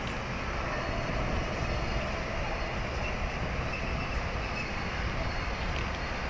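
Container freight train's wagons rolling past, a steady low noise of wheels running on the rails.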